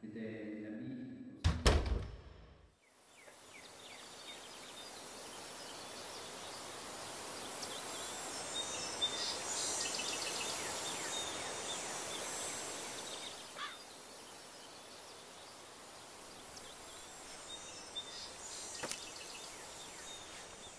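A single heavy thud about a second and a half in, then steady outdoor ambience with scattered faint bird chirps and a high hiss.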